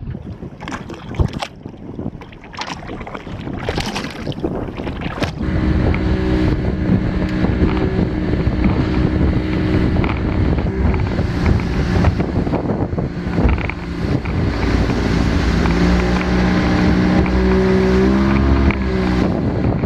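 A boat's motor running under way, its note steady and rising in level about five seconds in, with some shifts in pitch later. Before it come a few scattered knocks, and wind buffets the microphone throughout.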